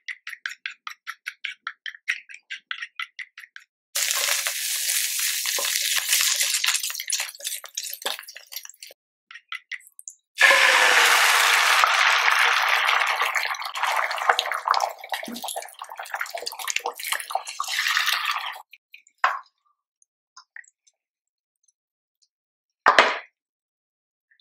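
Wooden spoon beating eggs in a ceramic bowl, a fast run of light clicks about five a second. Then sizzling in a hot nonstick pan, with a louder sizzle starting suddenly as the beaten egg is poured in and dying away over several seconds. One short knock near the end.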